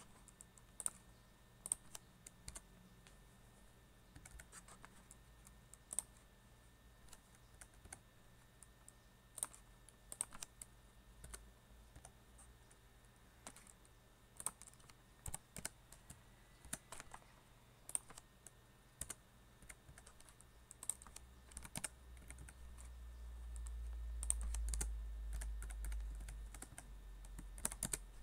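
Typing on a computer keyboard: irregular runs of keystrokes with pauses between them. A low rumble swells in the last third and is the loudest sound there.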